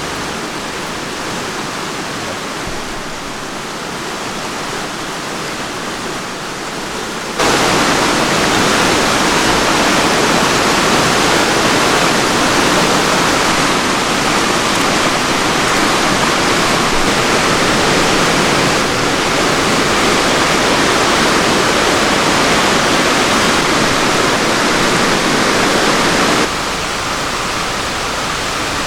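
River water rushing steadily. It is louder from about seven seconds in and drops back abruptly near the end.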